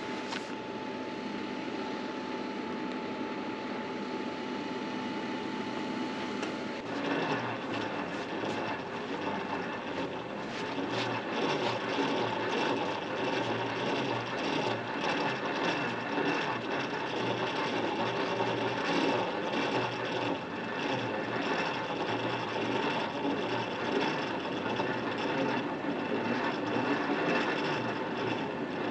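Jeep Wrangler JK's front-bumper winch paying out synthetic rope, a steady mechanical whirr with a fine rattle that starts about seven seconds in. Before that there is only a thin steady hum.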